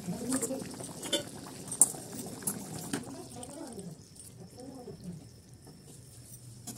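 Chicken curry simmering and bubbling in a kadai on a gas stove. A few sharp clicks come in the first three seconds, the loudest about two seconds in, and the sound grows quieter after about four seconds.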